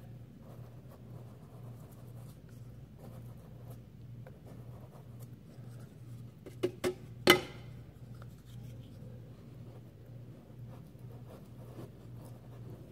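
Soft scratchy strokes of a paintbrush's bristles drawing paint along a wooden stair skirt board over a low steady hum. A little over halfway through come three sharp knocks in quick succession, the last the loudest.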